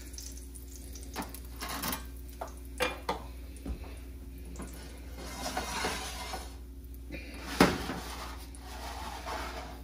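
A metal spatula scraping and clinking against a cast iron skillet and a wire rack as a fried crab cake is lifted out, then a metal sheet pan knocked and slid over cast iron stove grates, with the sharpest knock about three-quarters of the way through.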